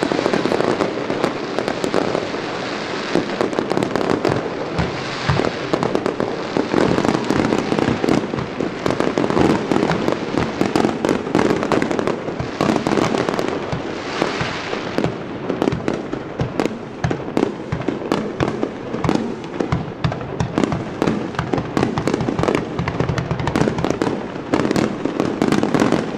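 Fireworks display: a dense barrage of aerial shells bursting, with many overlapping bangs and crackles one after another.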